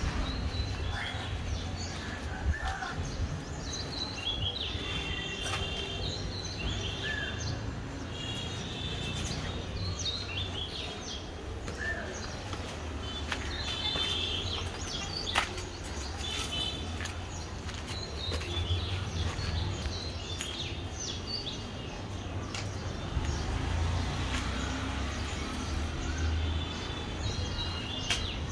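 Birds chirping repeatedly over a steady low rumble, with scattered sharp knocks and one louder knock about halfway through.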